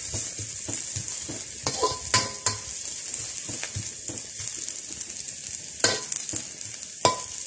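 A metal spatula scrapes and knocks against a steel wok as sliced shallots, garlic and dried anchovies are stir-fried in hot oil, over a steady high sizzle. The sharpest knocks, a couple with a short metallic ring, come about two seconds in and again near six and seven seconds in.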